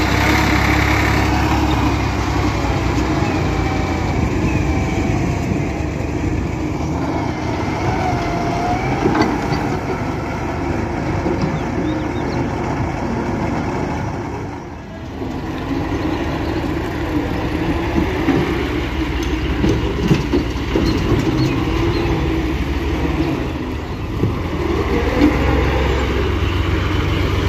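Diesel engines running steadily: a Massey Ferguson tractor pulling a trolley loaded with soil, and a Daewoo wheeled excavator working, with a brief dip in level about halfway through.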